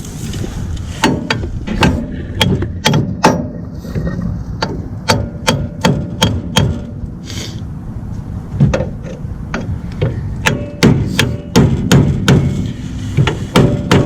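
Hammer striking metal on a seized drum brake of a classic Mustang, irregular blows about two a second with a brief metallic ring after some, and a short pause partway through: knocking stuck brake parts loose.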